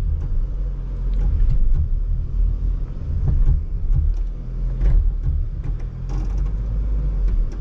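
Jeep Grand Cherokee 4xe crawling an off-road obstacle in four-wheel low, rock crawl mode: a steady low drivetrain rumble with scattered knocks throughout.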